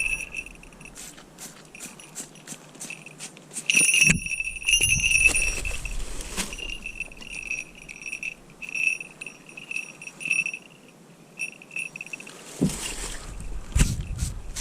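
Small falconry bell on a red-tailed hawk jingling in short, repeated rings as the bird shifts and flaps, with scattered light clicks and knocks.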